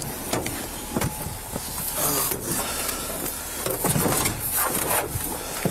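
Rubbing and handling knocks on a police body-worn camera's microphone as the officer moves about a patrol car's open rear door, over a steady hiss.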